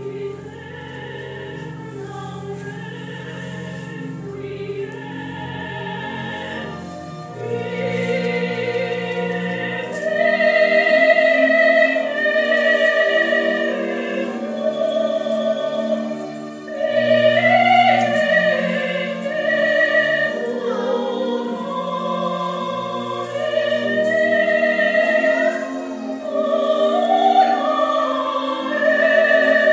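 Classical choral music with operatic singing: long, held notes over a sustained low accompaniment. It starts quiet and swells about seven seconds in and again about ten seconds in.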